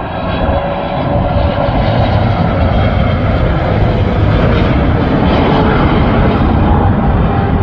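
Jet airliner passing close by on its landing approach: loud, steady engine noise with a faint whine that slides slightly down in pitch, swelling about a second in.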